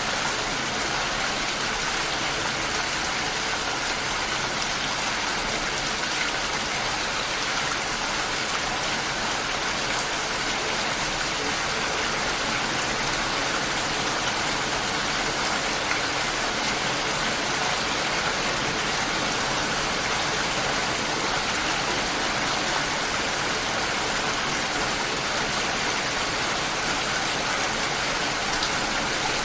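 Steady light rain falling, an even hiss of many small drops with no thunder.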